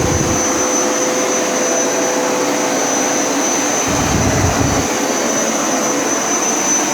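Hoover Power Scrub Elite upright carpet cleaner running steadily, a loud motor drone with a steady high whine. Two short low rumbles come near the start and about four seconds in.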